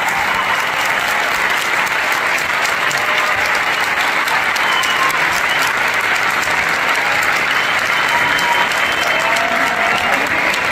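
A large audience applauding steadily, with a few voices calling out over the clapping.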